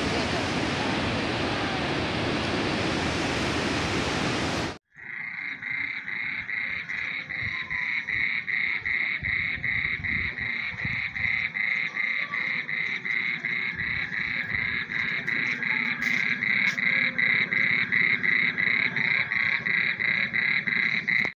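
Rushing floodwater as a steady, loud rush for the first few seconds. Then an abrupt cut to a chorus of frogs calling in an even, rapid pulse of about three calls a second, which runs on steadily.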